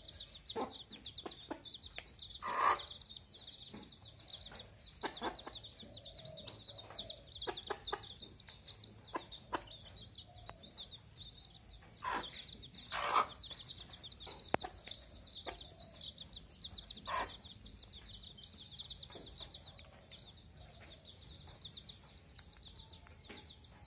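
A hen clucking now and then, loudest about 3 and 13 seconds in, over her chicks' high, constant peeping.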